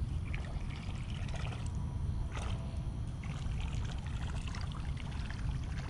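Water trickling from a storm drain, with a spinning reel being cranked in short spells over a low steady rumble.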